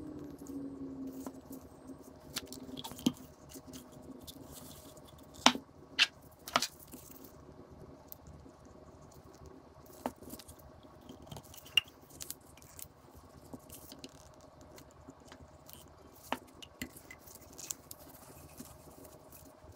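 Scattered light clicks and knocks from small objects being handled, loudest in a cluster about five to seven seconds in, over a faint steady hum.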